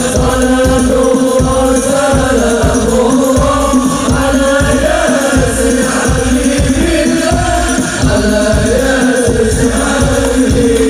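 Hadroh group performing sholawat: male voices chanting a melody together over rebana frame drums beating a steady rhythm.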